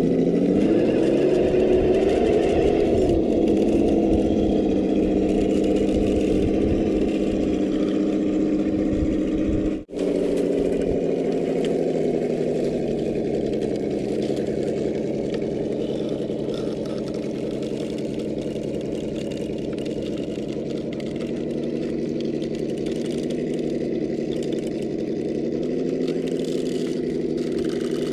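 Traxxas TRX-4 Defender RC crawler running slowly as it climbs over rocks, a steady engine-like drone that rises slightly in pitch in the first few seconds. It breaks off in a brief dropout about ten seconds in, then carries on.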